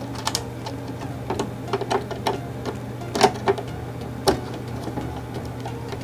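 Irregular clicks and light knocks of hands and a tool working the wire terminals of a circuit breaker during rewiring, the sharpest about three and four seconds in, over a steady low hum.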